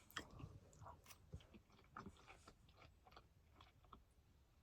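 Faint close-up chewing of a mouthful of mac and cheese: soft, irregular wet mouth clicks and smacks.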